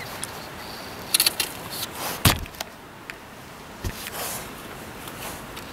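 A few quick clicks, then a sharp knock about two seconds in and a duller knock about a second and a half later, over a faint steady outdoor background.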